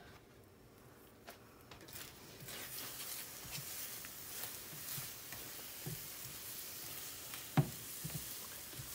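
Scrambled eggs sizzling in a hot skillet as a rubber spatula scrapes and stirs them, with small scraping clicks; the sizzle starts about two seconds in. A single sharp knock near the end.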